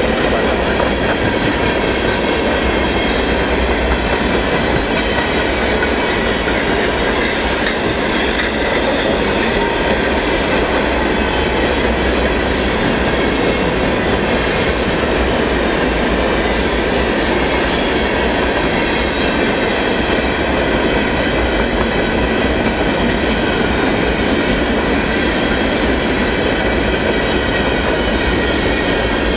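Freight train cars rolling past at close range: a loud, steady rumble and rattle of steel wheels on the rails that keeps an even level throughout, with faint steady high tones from the wheels.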